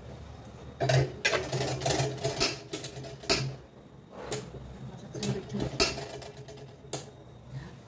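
A metal wok and spatula clattering as the wok is set onto a gas stove's wire pan support, a string of sharp knocks and clanks from about a second in until near the end.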